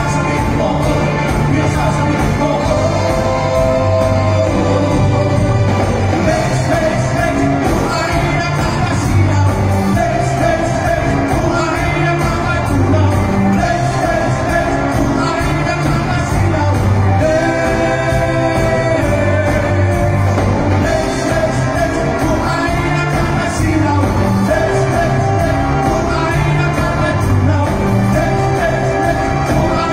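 Live pop-rock band playing with several male singers, electric guitars, bass, keyboard and drums, heard through the PA in a large hall.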